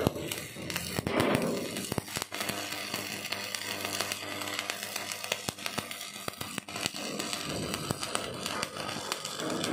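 Electric arc welding crackling steadily, with many sharp pops and a louder stretch about a second in, as weld is laid into a groove cut in a steel road-roller wheel.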